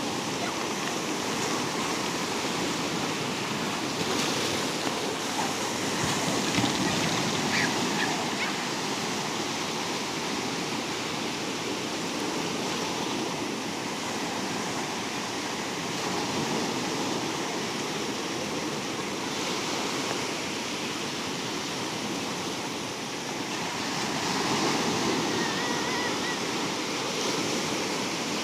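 Sea surf washing steadily onto the shore, swelling louder twice as bigger waves break.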